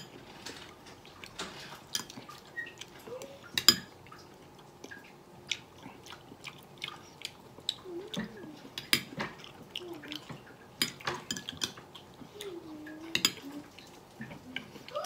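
A metal spoon clicking and scraping against a ceramic bowl as fruit salad is scooped and eaten, in scattered sharp clinks with one louder clink about four seconds in, and chewing between.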